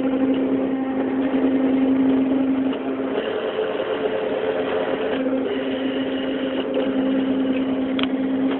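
CNC machine running, its motors giving a steady hum made of several held tones that step to new pitches every couple of seconds as the axes move, with a short click near the end.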